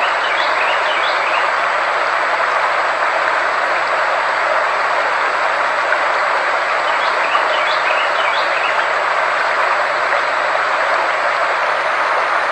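Steady, even rushing noise from a frequency-therapy sound track, with a faint low hum and faint high steady tones underneath. Faint chirp-like sounds come in twice, near the start and about seven seconds in.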